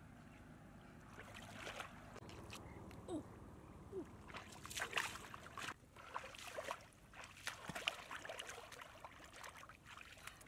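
Irregular splashing and sloshing in shallow muddy water as someone wades and grabs at fish by hand, starting about a second in with the strongest splashes around the middle and again later on.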